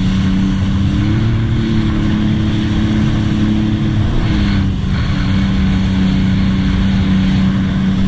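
2018 Sea-Doo RXT-X 300 personal watercraft running at steady cruise: its supercharged Rotax three-cylinder engine, fitted with a Riva Racing free-flow exhaust. The engine note rises a little about a second in, holds, and eases back down about four and a half seconds in.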